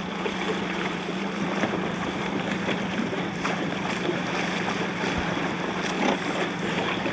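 Wind buffeting the microphone and choppy water splashing around a boat, over a steady low hum, with a few faint knocks.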